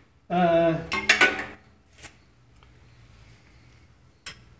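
A man's voice briefly, then a few sharp metallic clicks of a wrench on the electric motor's mounting bolts as they are tightened, with quiet between them.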